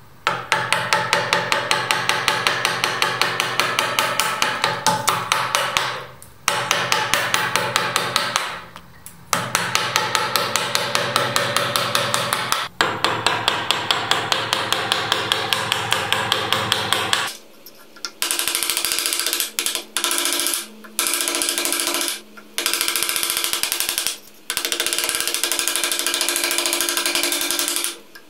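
A steel bench chisel driven by hand into a block of wood, chopping in quick repeated strokes, several a second, in runs broken by short pauses. About 17 seconds in the strokes change tone and come in shorter runs as the chisel pares a rounded corner.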